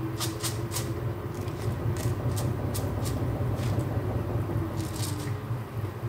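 A spice jar with a shaker cap shaken over a pot: a series of short, sharp rattling shakes. Under them runs a steady low rumble from the lit gas burner.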